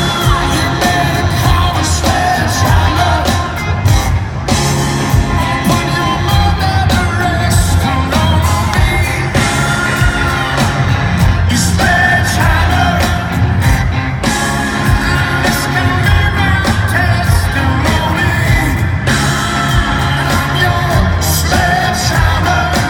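Live rock band playing with a lead vocal over drums, bass and guitars, loud and continuous, with some yelling from the crowd.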